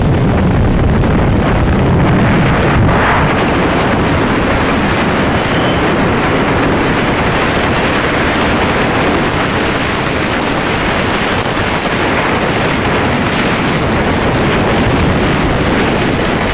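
Steady rush of wind over the microphone mixed with engine and road noise from a moving vehicle, with no pauses.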